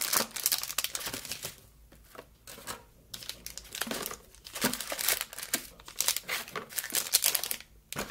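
Paper and packaging crinkling and rustling in irregular spurts as products are packed back into a cardboard gift box, with short pauses between handfuls.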